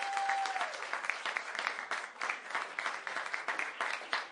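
Applause: many hands clapping in a dense, steady patter, with a steady tone that stops about half a second in.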